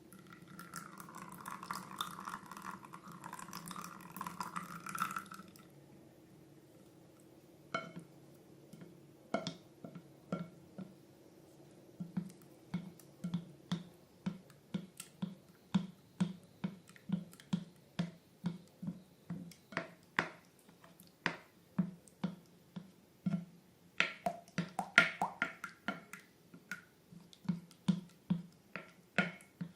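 Slime being handled: a stretch of soft pouring or rustling noise lasting about five seconds, then a steady run of wet clicking pops, about two a second.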